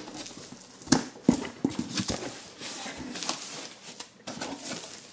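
Cardboard shipping box being opened by hand: two sharp knocks about a second in, then scraping and rustling of the cardboard flaps and packing.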